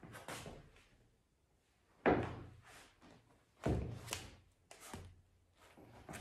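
Heavy thuds of knee-high rubber boots landing on a wooden parquet floor during boxing footwork, two loud ones about two seconds in and just under four seconds in, with softer knocks and scuffs between.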